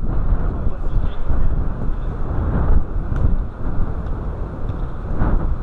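Wind buffeting the microphone: a heavy, steady low rumble.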